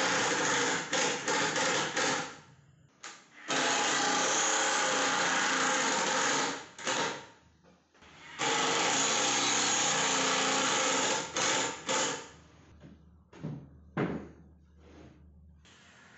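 Woodworking power tool running in three long bursts of a few seconds each, stopping briefly between them, followed by several sharp knocks.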